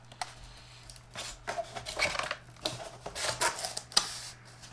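Cardboard packaging rustling and scraping as an AIO liquid cooler and its braided tubes are handled in the box, with scattered light knocks and a sharp click about four seconds in.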